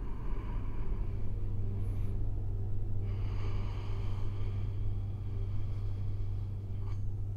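A low, steady rumbling drone, with faint high tones joining about three seconds in.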